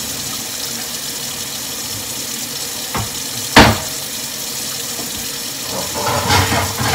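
Kitchen faucet running steadily into a stainless steel sink. A sharp knock comes about three and a half seconds in, and a short clatter of knocks near the end.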